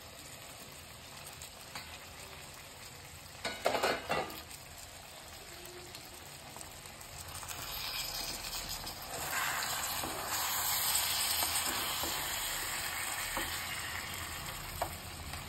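Pumpkin pieces frying in hot mustard oil and spices in a pan, sizzling. A few short knocks of a spoon against the pan come a few seconds in, and the sizzle swells past the middle before easing off.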